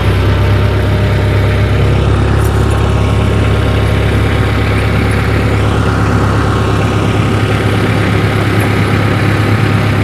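Tractor engine running steadily with a low hum as the tractor is driven slowly forward.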